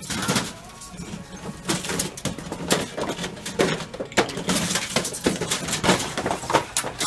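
Boxes and bottles of merchandise being swept off pharmacy shelves and clattering onto a hard store floor: a rapid, irregular run of sharp knocks and clatters, several a second.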